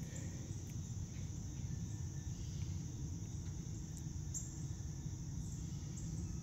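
Outdoor ambience: a steady high chirring of crickets or similar insects over a low, steady rumble, with a few faint clicks.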